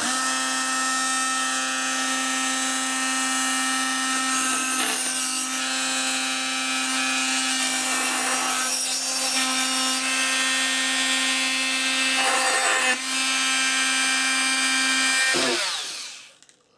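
Small handheld rotary tool with a thin cutting disc switched on and running at a steady high pitch. Three times its note roughens into a gritty grinding as the disc cuts into the 3D-printed brass body shell. Near the end it is switched off and spins down.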